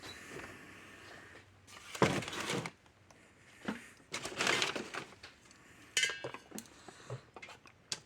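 Small metal hand tools clinking and clattering as they are rummaged through and handled, in a few short bursts, the loudest about two seconds in.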